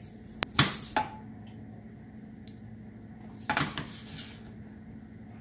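Frying pan knocking and scraping against a glass-top electric stove as it is set on the burner: a sharp click, then a few knocks.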